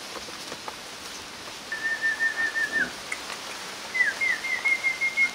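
A person whistling: a long high held note with a slight waver that drops off at its end, then a few quick falling chirps leading into a second long held note near the end.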